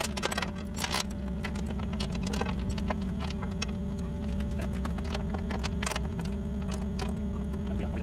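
Heavy steel tie-down chain clinking and rattling against itself and the excavator bucket as it is hooked and pulled tight, mostly in the first few seconds, with a last clink about six seconds in. An engine idles steadily underneath.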